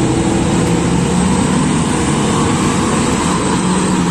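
Large mining dump truck's diesel engine running steadily and loudly as the truck drives past on a dirt haul road.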